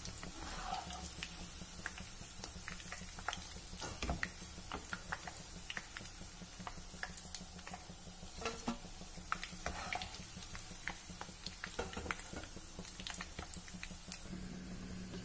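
Onion pakoda fritters deep-frying in hot oil: scattered small crackles and pops with light stirring sounds from a perforated metal skimmer.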